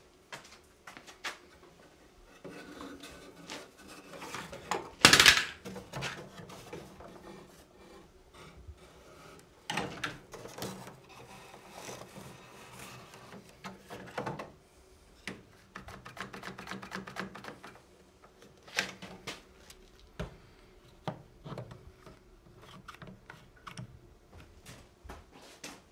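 Wooden rib strips and quick-release clamps being handled on a canoe building form: irregular clicks, knocks and rubbing of wood, with one loud sharp knock about five seconds in.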